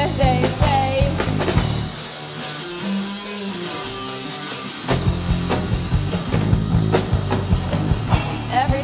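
Live rock band playing an instrumental passage with electric guitars, bass and drums. About two seconds in the drums and bass drop out, leaving a guitar holding notes alone for about three seconds, then the full band crashes back in.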